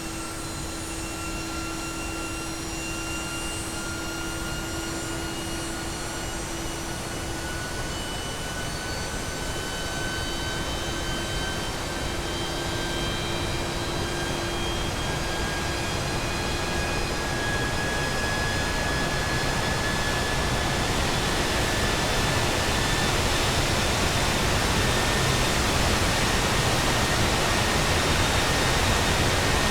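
GE Passport turbofan engine accelerating: a high whine slowly rises in pitch over a growing rush of noise, and it gets steadily louder throughout. A lower steady hum fades out about halfway through.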